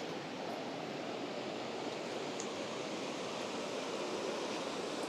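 Mountain stream water rushing over rocks, a steady, unbroken rush.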